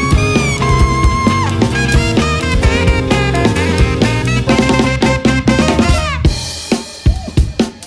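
Live funk band playing: a lead melody with bending notes over bass and drum kit. About six seconds in the band drops out and the drum kit carries on alone with separate hits.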